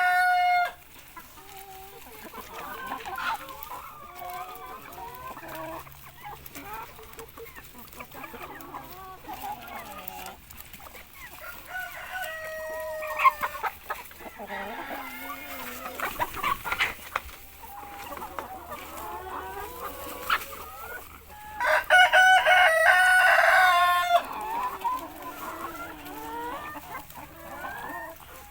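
Free-range chickens clucking throughout, with a rooster crowing loudly for about two seconds near the end; the tail of another crow opens the clip.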